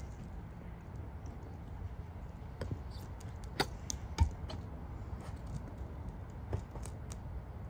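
Sharp clicks and knocks as a long-handled razor knife is worked through a windshield's urethane bead from inside the car, the two loudest a little past three and a half seconds and about four seconds in, over a steady low rumble.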